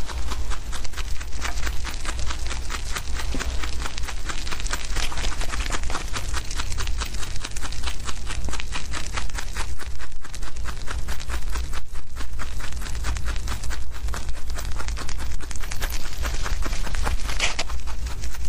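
Domestic rabbits chewing fresh grass blades close up: a rapid, continuous run of crisp crunching clicks, over a steady low rumble.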